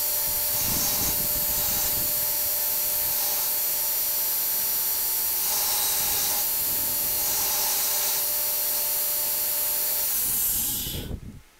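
Belt grinder running with a steady whine and hiss while a forged steel axe head is pressed to the belt in several short passes. Near the end the whine falls in pitch and the sound stops.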